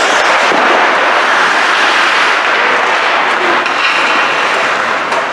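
Loud, steady rushing noise of an ice rink during a hockey game, with no single impact standing out.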